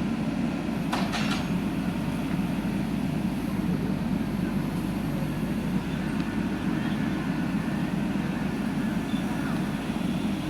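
Diesel engine of a JCB backhoe loader running steadily, with two sharp clicks about a second in.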